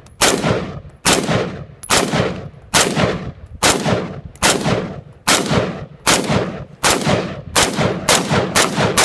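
Colt 6940 AR-15 rifle in 5.56 mm firing semi-automatic: about a dozen single shots, each with a short echoing tail, at roughly one a second and quickening toward the end.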